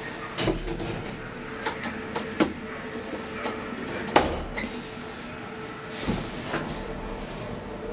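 DEVE hydraulic elevator car in operation: a steady hum with a string of clicks and knocks. The sharpest click comes about four seconds in, as the car's control buttons are pressed, and low rumbles come near the start and again after about six seconds.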